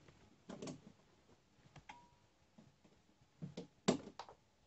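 A few scattered clicks and knocks from wires and objects being handled on a workbench, the loudest just before four seconds in, with a short faint beep about two seconds in.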